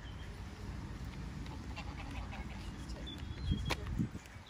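Ducks quacking over a steady low rumble, with faint high chirps of small birds; a couple of short knocks and a sharp click come about three and a half seconds in.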